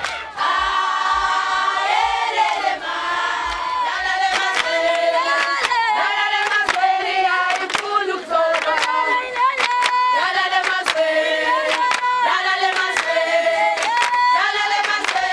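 A large group of women singing a Zulu song together, many voices holding and shifting long notes, with sharp claps scattered through.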